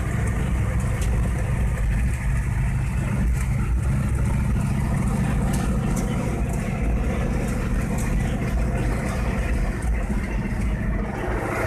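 Monster truck engine running at steady, even revs, heard from inside the cab, with a few sharp rattles or clicks here and there.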